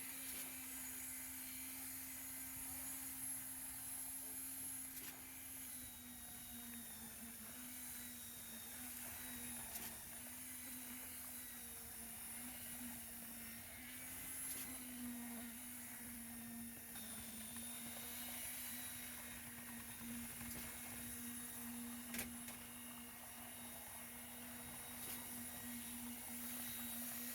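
Machinery at a concrete pour running steadily: a constant hum whose pitch wavers slightly, with faint higher whines above it, and a single sharp click near the end.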